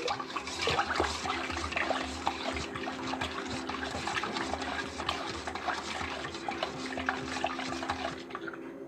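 Water running steadily from a kitchen tap, with small splashes and clicks, then shut off about a second before the end.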